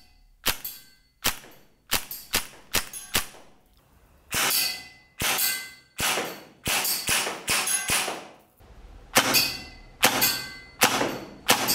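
Maruzen Ingram M11 gas blowback airsoft gun fired shot by shot, about two sharp cracks a second with short pauses, around eighteen shots in all. From about four seconds in the shots ring on longer with a metallic clang.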